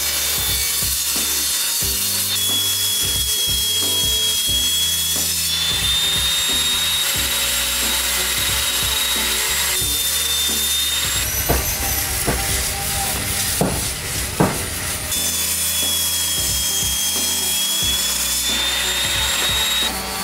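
Small table saw running and ripping a glued-up laminated wood block, its high whine sagging in pitch while the blade is in the wood and rising again as it frees. A few sharp knocks come midway.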